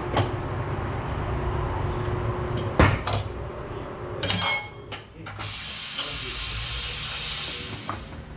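Tire-shop work sounds: a low machine rumble with a sharp clack near three seconds and a short squeal a second later, then a loud, even hiss of compressed air for about two and a half seconds.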